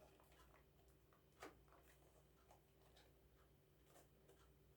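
Near silence: room tone with a low hum and a few faint small clicks, one a little louder about a second and a half in.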